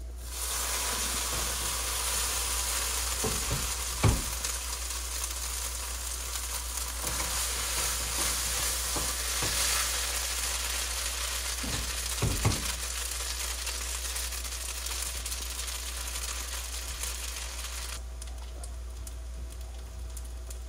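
Food sizzling and frying in a hot wok while being stirred, with a few knocks of a utensil against the pan; the sizzle starts abruptly just after the start and cuts off near the end.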